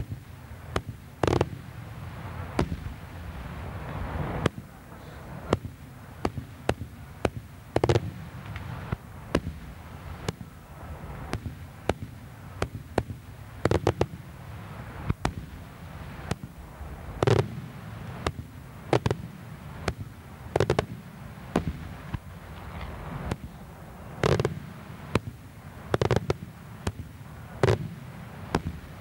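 Daytime aerial fireworks: an irregular, rapid string of sharp bangs from shells bursting in the sky, with louder reports every second or two over a low rumble.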